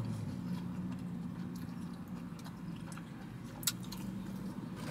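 A person chewing and biting into a french fry: soft, wet mouth sounds with a few small clicks, one sharper near the end, over a low steady hum.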